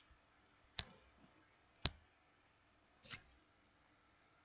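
Three sharp clicks about a second apart, the third one softer.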